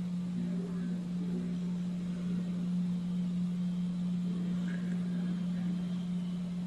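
A steady low hum at one pitch over faint background noise.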